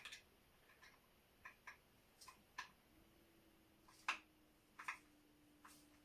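Faint scattered clicks and light taps of tools and metal parts being handled, about ten of them at uneven intervals, while taking apart an antique percussion gun's stock. A faint steady hum comes in about halfway through.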